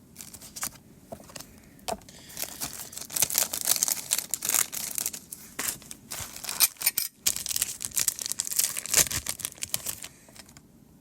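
Foil wrapper of a Pokémon card booster pack being torn open and crinkled: a few light clicks at first, then dense crackling from about two seconds in, with a brief pause partway, dying away near the end.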